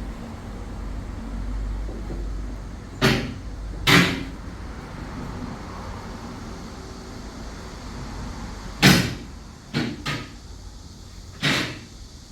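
Kia Grand Carnival engine idling steadily with the air conditioning running while it is charged with refrigerant. Sharp knocks or clacks cut through it: two about a second apart, then three close together, and one more near the end.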